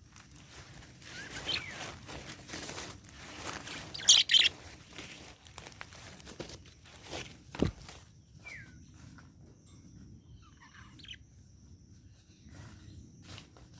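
Budgerigar giving scattered short chirps and small gliding calls, over rustling and scuffling, with one sharp knock about halfway through.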